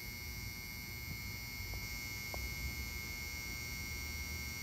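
Ballast of a cheap 175-watt mercury vapor bucket light humming steadily, with a high-pitched whine over a low mains hum. The ballast is annoyingly noisy.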